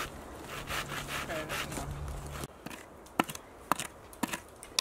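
Hand saw cutting through a dry branch with steady rasping strokes. After about two and a half seconds it gives way to four sharp strikes of a blade tool chopping and scraping into dirt, about two a second.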